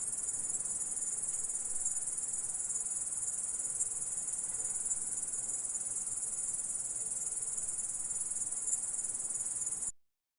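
Grasshopper stridulating: a continuous, high-pitched, even trill that cuts off abruptly near the end.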